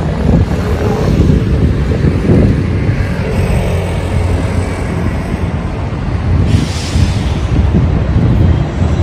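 City street noise: a loud, uneven low rumble of traffic, with wind buffeting the microphone, and a brief hiss about six and a half seconds in.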